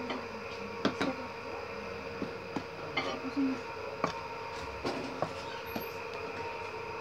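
Wooden spoon stirring dry flour in a stainless steel bowl, with scattered light knocks of the spoon against the bowl, over a steady electrical hum.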